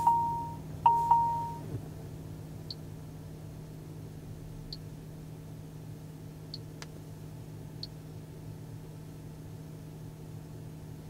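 Two short electronic chime beeps near the start, as the car's rear camera and parking aid switch on. They are followed by a steady low cabin hum with a few faint ticks.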